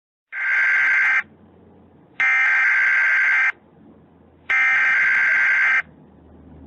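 Three Emergency Alert System SAME header data bursts, each about a second long with about a second between them. These are the digital header that opens an alert before the attention tone.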